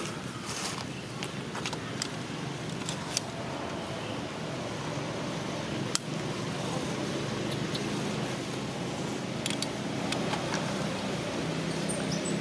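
Steady low background hum, like a distant motor, with a few faint sharp clicks scattered through it.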